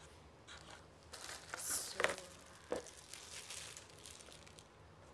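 A clear plastic bag crinkling and rustling as it is handled. Two sharp clicks stand out, about two seconds in and again a little under a second later.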